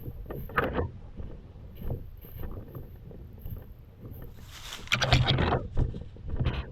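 Rustling and scattered footfalls from a player on the move in the woods, with wind and handling noise on a body-worn microphone. A louder rush of rustling noise comes about four to five seconds in.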